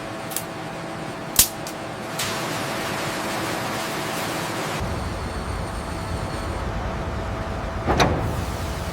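Metalwork sounds while hull bolts are fastened: a few sharp metal clicks, a steady hiss for a couple of seconds, then a low machinery rumble with a heavy clank near the end.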